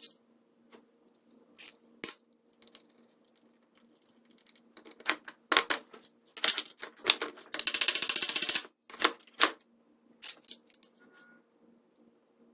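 Small metal parts clicking and clinking as they are handled and set down on a workbench, with a dense buzz about a second long around two-thirds of the way through, from a small motor or power tool.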